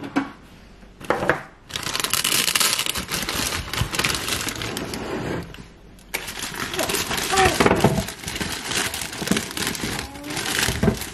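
A plastic-and-mesh potato bag crinkling and rustling as potatoes are tipped out into a plastic steamer basket, with the potatoes knocking against the plastic. The rustling starts about two seconds in, pauses briefly around the middle, then picks up again.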